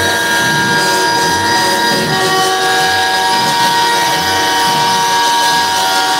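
Several semi-truck air horns blaring at once in a steady, loud chord of overlapping tones, with another horn joining about two seconds in.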